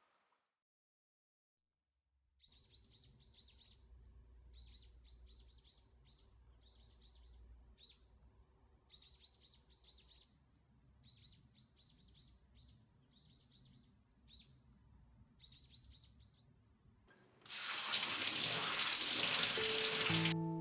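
A small songbird singing short, quick, high chirping phrases over and over, with brief pauses between them. About three seconds before the end a loud, steady hiss starts suddenly.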